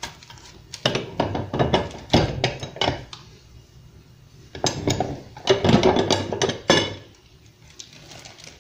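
Cast-iron tortilla press clanking and knocking as its lid and lever handle are worked and pressed down on the counter. There are two bursts of metal knocks, one in the first few seconds and another from about halfway in.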